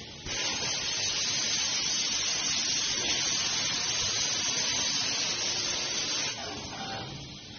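Laser cutter's oxygen assist gas hissing steadily from the cutting head's nozzle as the beam cuts carbon steel plate. It starts a moment in and drops off about six seconds in, leaving a fainter hiss.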